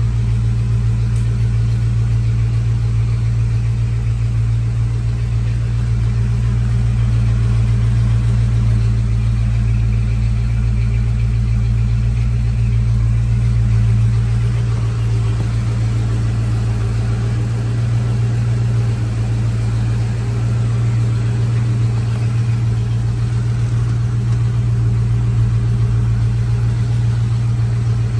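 The 1966 Oldsmobile Starfire's 425 cubic-inch V8 with four-barrel carburettor idling steadily.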